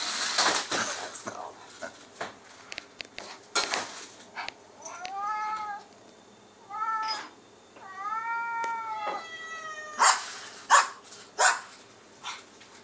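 A cat meowing three times in the middle, each call rising then falling in pitch, the last the longest. Scattered sharp clacks around the calls, with a few near the end the loudest sounds.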